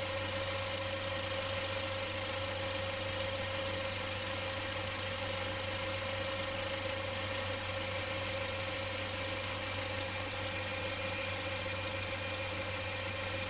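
Mercedes-Benz M270 turbocharged four-cylinder idling after a cold start, with a fast, even, high-pitched 'chi-chi-chi-chi' ticking over the steady idle: the abnormal noise this engine is making.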